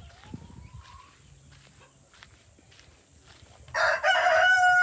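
A rooster crowing: one long, loud, held crow that starts suddenly near the end. Before it there are only faint scratches and a short rising call.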